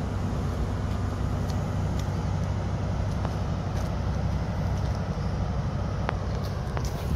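Steady low vehicle rumble, with a few faint ticks.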